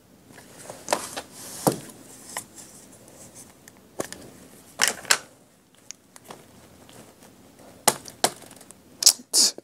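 Irregular small plastic clicks and taps: a rubber stamp being handled on a clear acrylic stamping plate and dabbed with an ink pad in a plastic case. The sharpest clicks come in a cluster near the end.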